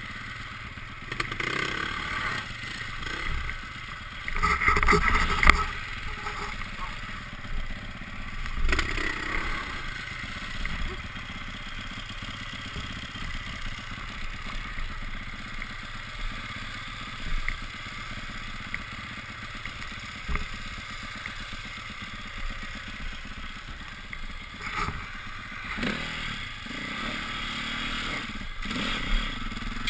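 Dirt bike engine running while riding a rough off-road track, with rattling knocks over bumps; it is loudest about four to six seconds in.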